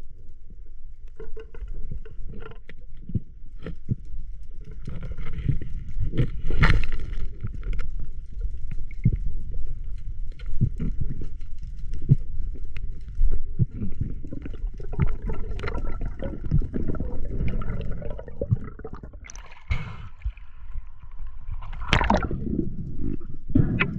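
Water gurgling and sloshing close to the microphone, under a low rumble, with many scattered clicks and knocks.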